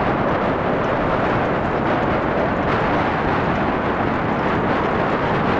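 Strong wind buffeting the microphone in a steady, loud roar, with no engine or voice standing out, heard as 8-bit audio.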